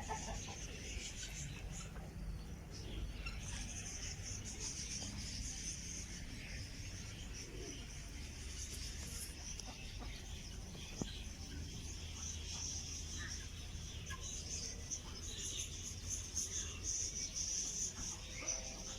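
Many small birds chirping in a continuous high-pitched chorus over a low background rumble.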